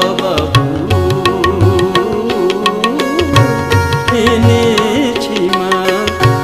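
Instrumental passage of a Bengali Shyama Sangeet devotional song: tabla keeps a steady rhythm with deep bass strokes under a winding, ornamented melodic line.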